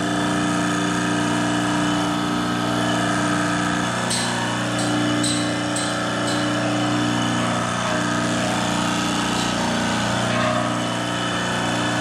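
Hydraulic shop press with its pump motor running steadily as the ram comes down onto a cast bearing flange to press the bearing out. A few short, light hissy ticks sound about four to six seconds in.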